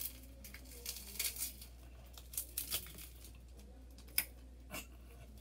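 An already shattered screen protector crackling and snapping as it is bent and broken apart by hand, in scattered bursts of crackles with one sharper snap about four seconds in.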